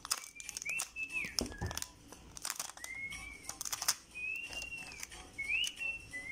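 A whistled tune of held notes that slide up and down, over the crinkling and rubbing of clear sticky tape being pressed and smoothed onto paper.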